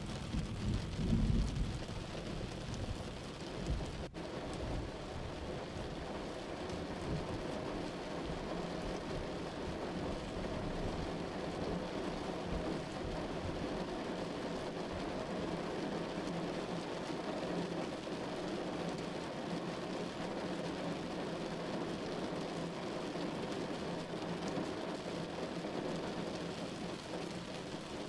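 Steady rain sound, an even hiss, with a low rumble of thunder about a second in. A brief dropout about four seconds in.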